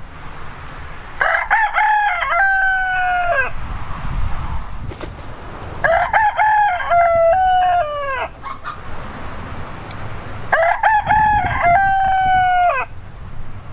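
A rooster crowing three times, about four to five seconds apart. Each crow is a few short rising notes followed by a long held note that drops off at the end.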